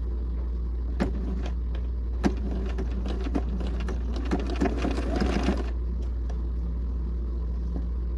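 Sharp clicks and knocks of denim and thread being set under the presser foot of a Bernina 130 sewing machine, over a steady low hum, with a busier stretch of handling noise about four to five and a half seconds in.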